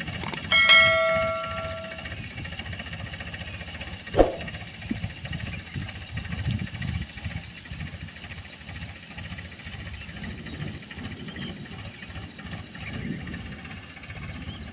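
Tractor diesel engine running steadily while pulling a field implement, heard as a low rumble. Near the start a bell-like chime rings out and fades within about a second and a half, and a single sharp click comes about four seconds in.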